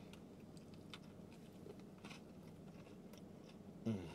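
A person chewing a mouthful of shrimp taco: faint, scattered wet mouth clicks over a low steady hum. A short voiced sound comes near the end.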